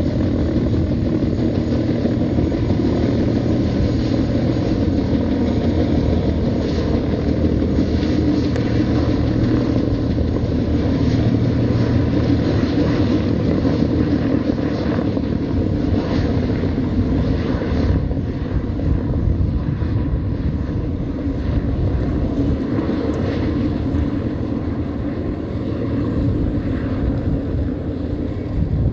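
Light helicopter flying low overhead, its rotor beat and engine sound running steadily, then easing a little in the second half as it climbs away.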